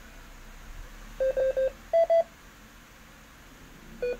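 Key beeps from a Yaesu FT-2980 2-metre transceiver as its buttons are pressed to step the frequency up from 144 MHz. There are three short beeps about a second in, two higher-pitched beeps a moment later, and one more near the end.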